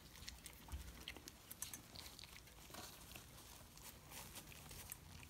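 Faint crunching and chewing clicks as two young puppies bite and tear at a whole day-old chick, with light crinkling of the pad under them.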